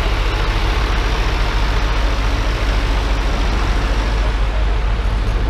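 Vintage farm tractor engines running close by, the nearest a green John Deere's: a loud, steady low rumble.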